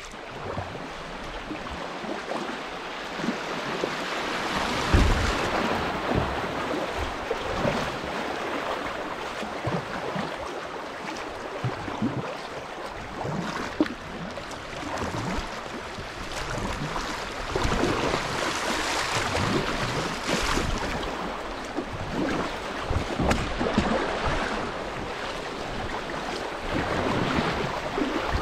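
River water rushing and splashing over shallow riffles around a kayak, growing louder a few seconds in as the boat runs into the rough water. Paddle blades dip and splash through it.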